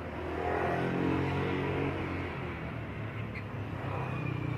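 A motor engine running with a steady hum that swells about half a second in and eases after about two seconds, like a vehicle passing.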